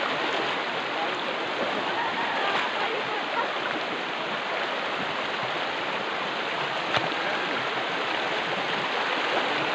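Steady rush of a mountain river. A single sharp click sounds about seven seconds in.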